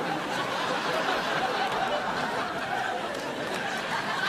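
Studio audience laughing, a long even laugh with no break.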